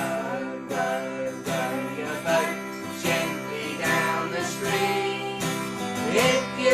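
Yamaha acoustic guitar strummed in a steady rhythm, accompanying a man and a woman singing a children's song.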